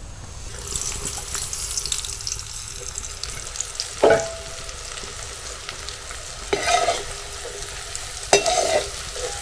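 Cornflour-coated sweet corn kernels sizzling in oil in a metal wok, a steady hiss. A slotted steel spoon knocks and scrapes against the wok a few times, the first at about four seconds in.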